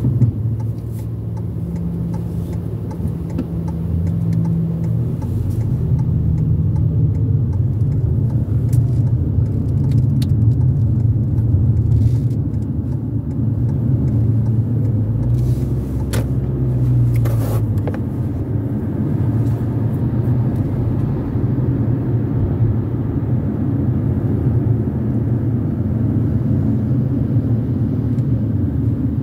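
Steady low engine and road rumble heard from inside a car's cabin while driving. It grows louder a few seconds in as the car gets moving, with a few faint clicks.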